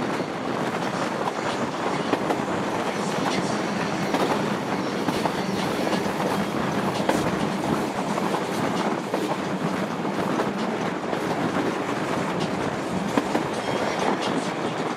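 An ALe 801/940 'Fanta' electric railcar running at speed, with a steady rumble and wheels clicking over the rail joints, heard from an open window.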